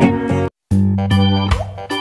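Instrumental background music with plucked notes over a bass line, which cuts out completely for a moment about half a second in and then starts again.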